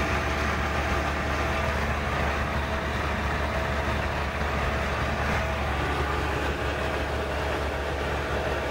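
Trabant at steady motorway cruising speed, heard from inside the cabin: an even engine drone mixed with wind and road noise, holding steady throughout.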